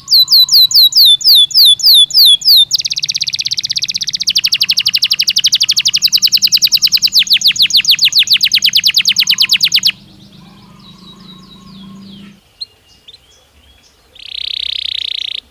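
Belgian canary singing: a run of descending whistled notes at about four a second, then a long rapid trill lasting several seconds, a pause with a few soft chirps, and a short buzzy phrase near the end.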